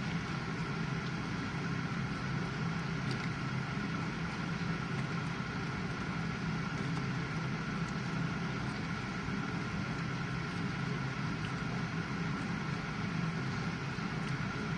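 GE dishwasher running: a steady, unchanging hum from its pump with an even wash of noise over it.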